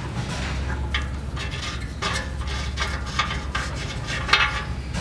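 Front oxygen sensor being unscrewed by hand from a catalytic converter: irregular small metallic clicks and scrapes as it turns out of its threads, the loudest about four seconds in, over a steady low rumble.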